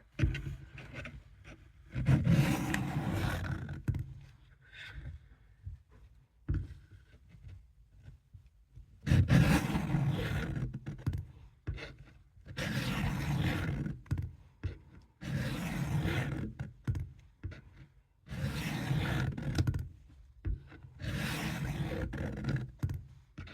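Steel blade of a vintage Camillus Trailblazer fixed-blade knife scraping along a sharpener in long strokes, about six of them, each lasting a second and a half to two and a half seconds, with short pauses between.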